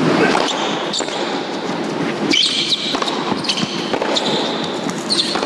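Tennis serve and rally: a tennis ball struck back and forth by rackets several times, with sharp, separate hits spread through the few seconds, over a steady background hum of the crowd in the arena.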